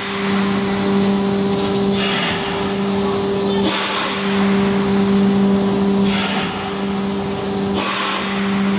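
Automatic paper egg tray production line running: a steady machine hum with a low drone and a higher tone, broken by a short hiss of air about every two seconds.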